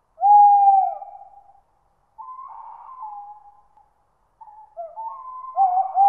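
Owl hooting: a loud, long hoot a moment in, a quieter wavering call around two seconds in, then overlapping hoots from about four and a half seconds on.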